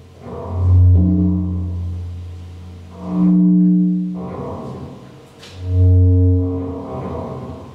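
Modular synthesizer playing deep, sustained bass tones in slow swells, one rising and fading about every two and a half seconds, each with higher held tones stacked above it.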